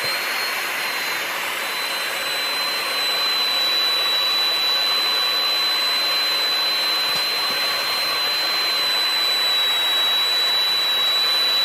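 Corded electric sander with a coarse 60-grit pad running steadily with a high whine while sanding knots on a cedar log flat, growing slightly louder a few seconds in.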